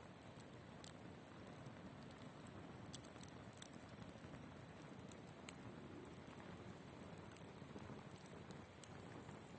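Log campfire burning, with scattered sharp crackles and pops over a faint steady hiss.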